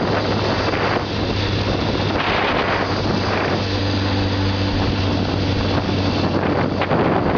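Honda CBR600F4i's inline-four engine running steadily while riding, under heavy wind noise on the microphone.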